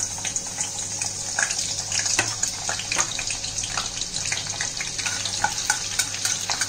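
Minced garlic sizzling and crackling in hot oil in an iron kadhai: a steady hiss with many small pops. This is the garlic tempering (phodni), the first step of the masala.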